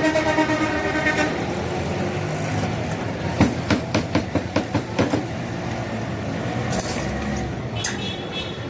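Road traffic noise with a vehicle horn that stops about a second in. In the middle comes a quick run of about eight sharp knocks.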